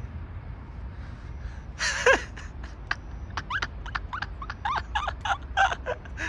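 A quick string of short, high-pitched squeaky gasps from a person, starting about two seconds in after a brief burst of hiss.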